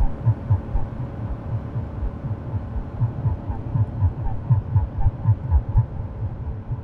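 Low throbbing pulses, about two a second and uneven, over a steady low hum, with runs of faint short high blips about halfway through and again later.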